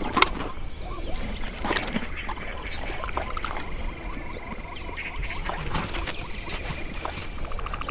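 Wildlife ambience of frogs croaking, with a high chirp repeating about three times a second and scattered short clicks.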